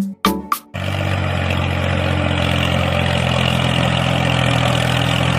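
Percussive music cuts off abruptly less than a second in. A steady engine sound takes over, running evenly at an unchanging pitch.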